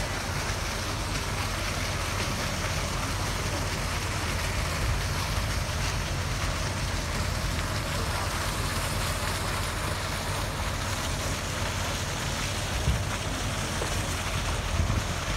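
Water rushing and splashing along the hull of the steamship Shieldhall as she moves ahead: a steady rushing noise with a low rumble underneath and a couple of small bumps near the end.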